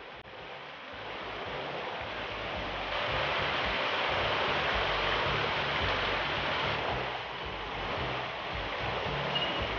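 Steady rush of falling and splashing water from a waterfall pouring into a lagoon pool. It builds over the first couple of seconds and then holds steady.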